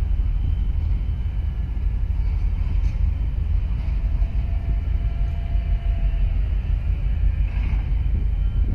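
Wind buffeting the microphone: a loud, unsteady low rumble. A faint thin tone comes in for about two seconds midway.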